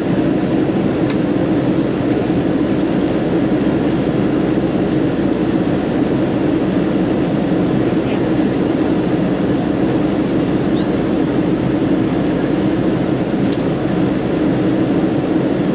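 Steady cabin drone of a Boeing 767-300 in the climb, heard from a seat over the wing: the low, even rush of its Rolls-Royce RB211 turbofans and the airflow along the fuselage.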